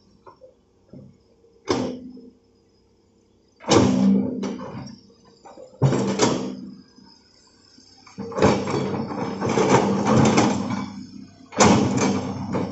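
Hitachi hydraulic excavator digging soil: the engine and hydraulics come up in loud, irregular bursts as the boom and bucket work. There is about a second of complete silence a couple of seconds in.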